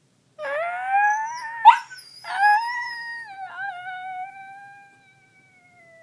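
Dog howling: a rising howl that breaks sharply at its peak about one and a half seconds in, then a second long howl that slowly falls in pitch and fades out.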